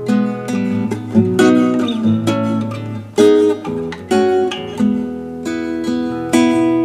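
Acoustic guitar fingerpicked: a melodic instrumental passage of plucked notes and chords, each note ringing on.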